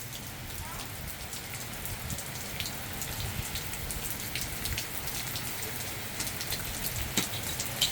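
Heavy rain from a hurricane squall falling steadily, with many sharp drop hits close by. It grows a little louder over the first few seconds.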